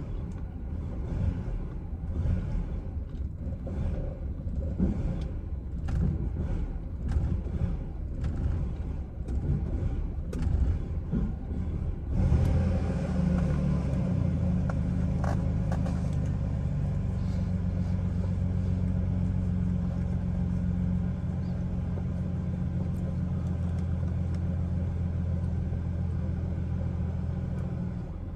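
Chevrolet Silverado's engine at a very rough, uneven idle. About twelve seconds in it changes suddenly to a steady, even run.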